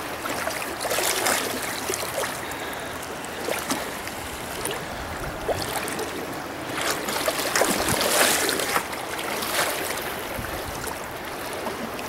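Shallow river rapids rushing around a canoe hull as the canoe is pulled upstream by hand, with louder splashes now and then.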